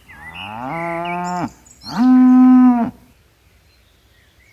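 A cow mooing twice. The first moo is long and rises in pitch partway through, and the second, shorter one is louder and steady.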